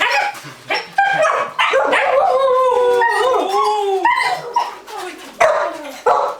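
Samoyed dogs vocalising in excited greeting: short barks and yips, with one long wavering howl-like call through the middle.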